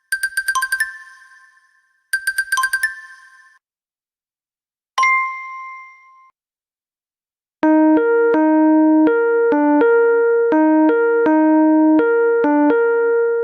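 A run of app ringtones. A bright jingling ringtone of rapid high notes ending in a held tone sounds twice, a single two-tone chime rings out about five seconds in and fades, and after a short gap an electric-piano-style ringtone melody starts and keeps repeating.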